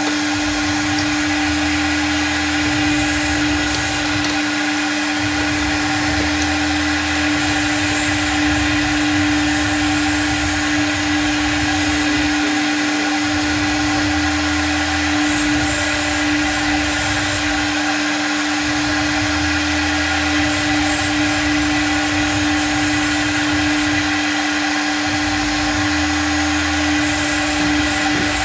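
CNC router spindle running at a steady high pitch while its bit cuts a black sheet, with cutting noise over the whine. A low rumble comes and goes every few seconds as the head moves.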